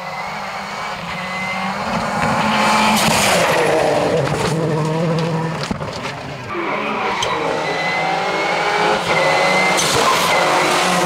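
Rally car engine under hard acceleration, its pitch climbing and dropping back at each gear change, growing louder about two seconds in as the car nears.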